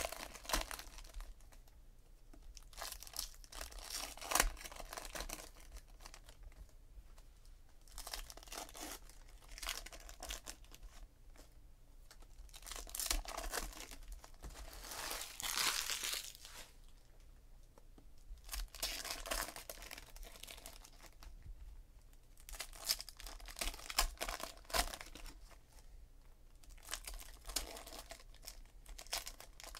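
Trading card pack wrappers being torn open and crinkled by hand, in a series of irregular tearing and crinkling bursts, the longest and loudest about halfway through.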